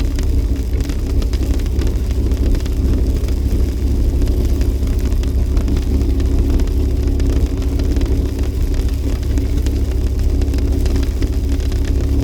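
A Jeep driving, a steady low rumble of engine and road noise with no let-up.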